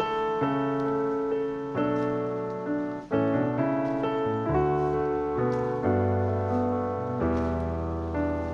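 Background piano music: sustained chords and notes, a new one struck about every half second to second.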